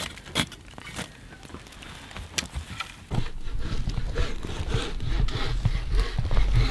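A few knocks and scrapes, then from about three seconds in a loud low rumble with small crackles that builds toward the end: an open campfire burning.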